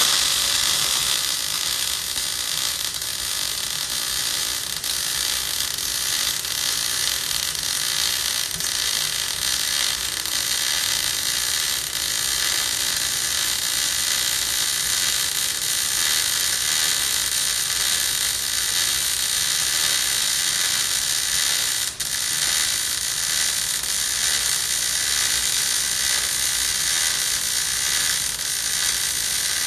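MIG welding arc running a fillet weld with a steady crackling hiss. It strikes up at the start and holds throughout, with one momentary drop about two-thirds of the way through.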